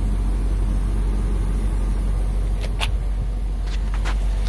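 Steady low rumble of the truck's 5.7-litre V8 gasoline engine idling, with a few light clicks about three and four seconds in.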